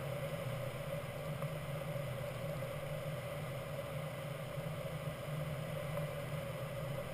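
Steady rush of air over a Grob 103 glider's canopy, heard inside the cockpit in gliding flight, with a constant low hum beneath it.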